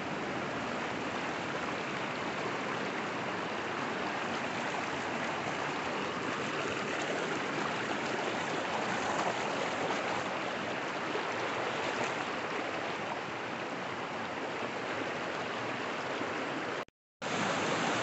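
River water rushing and splashing over rocks, heard close up, steady throughout, cutting out briefly near the end.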